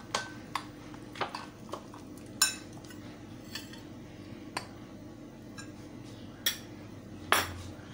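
Steel spoon clinking and tapping against glass mixing bowls, about ten scattered taps with two louder knocks, as flour is spooned into a gram-flour batter.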